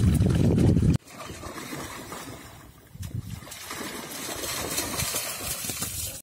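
Dogs wading and splashing through shallow lake water. The sloshing is heavy and low for the first second, then changes abruptly to a lighter, hissy splashing that builds toward the end.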